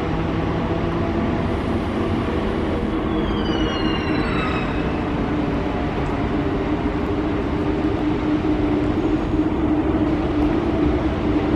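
Rubber-tyred Paris Métro Line 6 trains running along the elevated viaduct, a steady rumble and hum. Several high whining tones fall in pitch about three to four seconds in.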